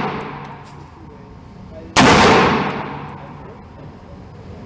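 Ruger AR-556 rifle in 5.56 firing a single shot about two seconds in, its report ringing out in a long echoing fade. The echo of the previous shot is still dying away at the start.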